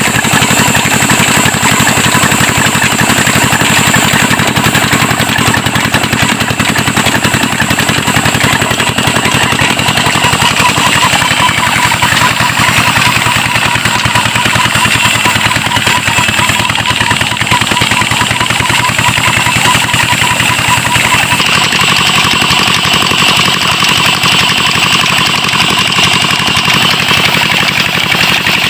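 Petter-type diesel engine running steadily and driving a wood-cutting saw machine, with a rapid, even beat and a high whine over it. The tone shifts slightly about 21 seconds in.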